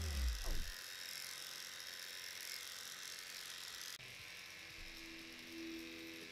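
Electric dog clipper running and cutting through a dog's coat, heard as a steady high hiss; after a sudden change about four seconds in, its motor hum comes through as a steady tone. A short falling tone fades out in the first second.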